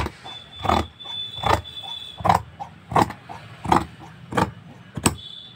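Tailor's scissors cutting through folded fabric along a marked line: a regular run of about seven snips, roughly one every three-quarters of a second.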